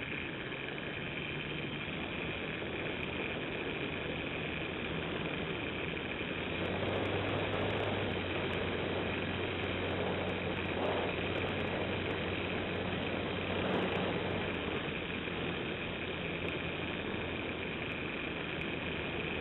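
The motor and propeller of a radio-controlled model airplane run steadily in cruising flight, heard from a camera mounted under the fuselage, with wind rushing past. The sound grows a little louder and deeper for several seconds in the middle, then settles back.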